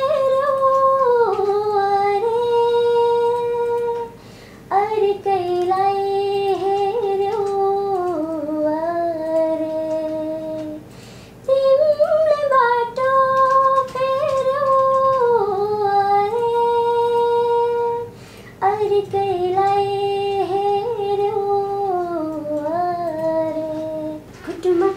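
A young woman's solo voice carries a song melody unaccompanied, in four long drawn-out phrases with short breaths between them.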